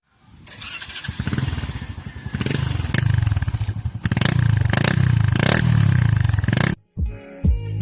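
SYM Bonus 110 motorcycle's small single-cylinder engine running and revving in repeated swells. It cuts off suddenly about seven seconds in, and guitar music follows.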